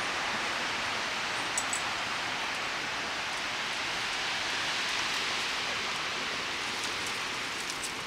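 Windstorm blowing through trees and shrubs: a steady rushing hiss that grows a little quieter near the end.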